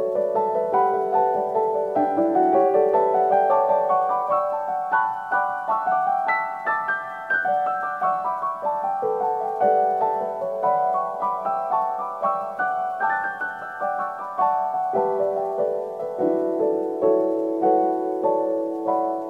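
Background piano music: a gentle melody of short, evenly paced notes.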